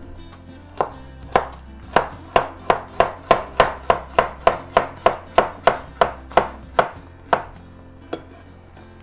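Chef's knife dicing a carrot on a chopping board: a steady run of sharp chops, about three a second, for around six seconds, trailing off with one last chop.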